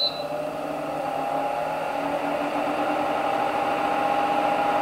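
Membrane Solutions home air purifier: a short high beep as its front button is pressed, then its fan spins up to a higher speed, the whir growing louder over a couple of seconds with a steady whine on top.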